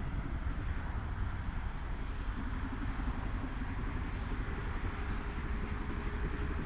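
LMS Princess Coronation class Pacific 6233 'Duchess of Sutherland' approaching at a distance under steam, a steady, even rumble of the engine working with no distinct exhaust beats.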